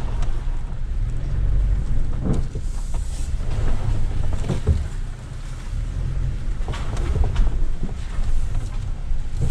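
A 4x4 vehicle driving slowly in four-wheel-drive high over a rough dirt trail. The engine and road noise make a steady low rumble, with sharp knocks and rattles from bumps, the loudest about two seconds in and again around seven seconds.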